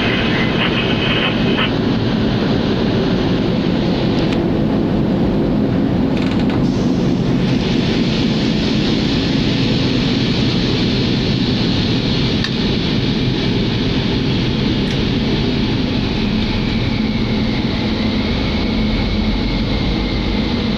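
Cab noise of an ST45 diesel locomotive slowing under braking from about 75 km/h towards a stop: a steady low rumble of engine and wheels on rail. A faint high tone comes in near the end.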